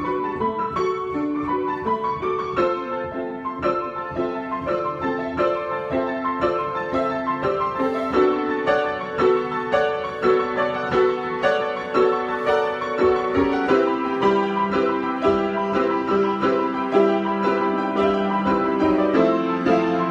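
Solo piano improvisation: chords and melody played in a steady flow of notes, with a lower bass line coming in about two-thirds of the way through.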